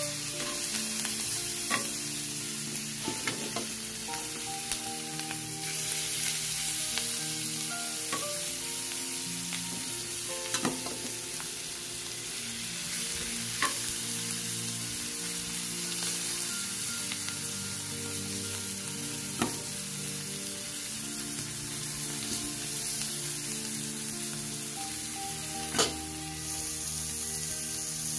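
Chicken sisig sizzling in butter on a hot sizzling plate, a steady frying hiss, while a metal spatula stirs it and now and then clicks and scrapes against the plate.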